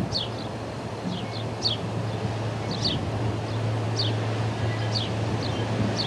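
Ospreys calling: a series of short, high, downward-slurred chirps, often in twos, over wind noise on the microphone and a steady low hum.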